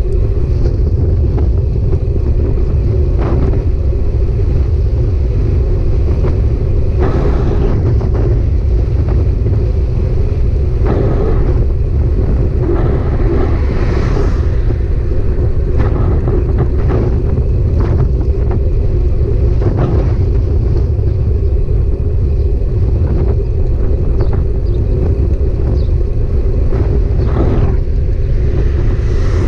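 Loud, steady rumble of a moving bike ride, road and wind noise on the microphone, with scattered short knocks and rattles throughout.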